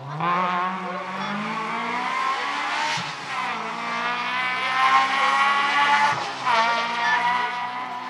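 Rally car's engine accelerating hard at high revs. The note climbs, drops briefly about three and six seconds in as it shifts up, and climbs again.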